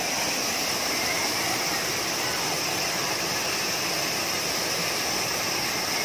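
Steady rush of a waterfall, about 6 to 10 metres high, pouring into a pool.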